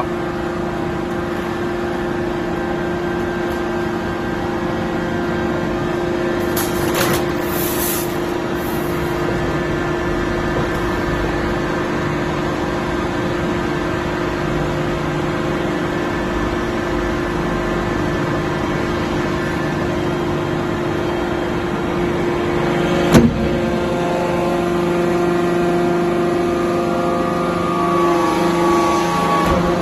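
Sink-making machine running with a steady mechanical hum. A single sharp knock comes about 23 seconds in.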